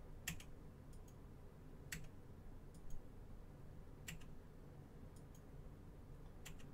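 Computer mouse button clicking faintly: a sharp click about every two seconds with fainter ticks between, as the list randomizer is re-run.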